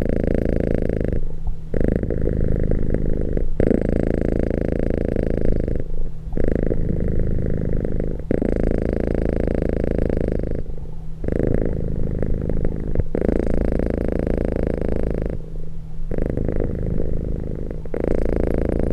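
Domestic cat purring close to the microphone, a steady low buzz that shifts with each in- and out-breath every two seconds or so, with brief pauses between breaths.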